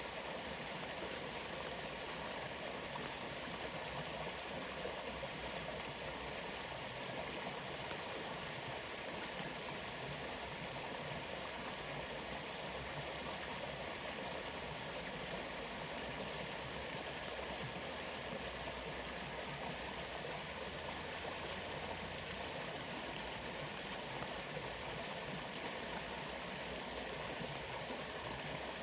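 Waterfall: a steady, unbroken rush of falling and flowing water.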